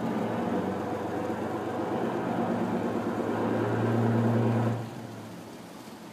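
Fishing boat's engine running close by, a steady low note that swells about three and a half seconds in and then drops away sharply near five seconds, leaving a quieter hum.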